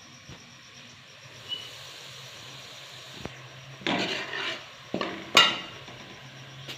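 Kitchen utensils and cookware being handled: a few light clicks and knocks, then two short scraping, rattling bursts about four and five and a half seconds in, the second the loudest.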